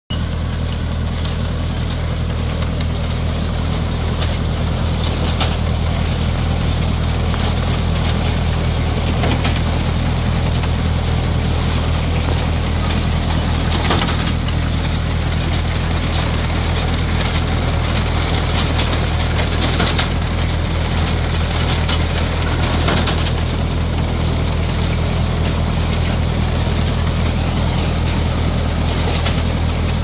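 Tractor engine running steadily as it pulls a McCormick-Deering grain binder cutting wheat, with the binder's chains and cutter clattering along. A sharp clack stands out every few seconds.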